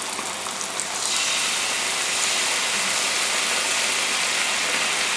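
Balsamic vinegar poured into hot oil and butter in a nonstick grill pan, sizzling steadily. The sizzle grows louder about a second in as the vinegar hits the hot fat.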